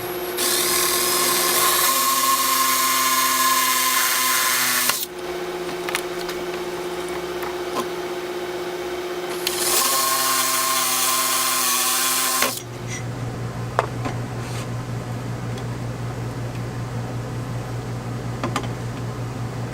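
Power drill running at a steady speed in two long runs, about four and a half seconds and then about three seconds, with a short pause between.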